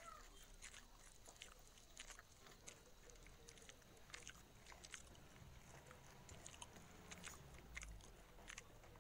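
Faint close-up chewing and biting: a person chewing a mouthful of food, with many small irregular wet clicks and crackles.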